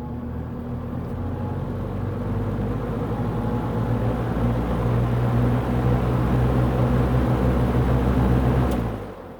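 Vintage Servess box fan, built by Air King, running on high: a motor hum under rushing air that grows louder as the stiff motor slowly brings the blades up to speed. The motor is dry and needs oil badly, so it doesn't reach full speed. A click comes near the end, and the sound then drops away quickly.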